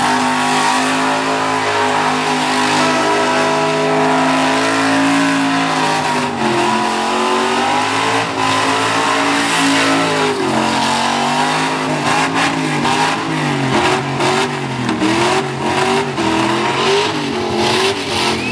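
Holden HK Premier's engine held at high revs in a burnout, its rear tyres spinning and smoking with a steady hiss. After about six seconds the revs start to rise and fall, and over the last few seconds they bounce quickly up and down as the driver blips the throttle.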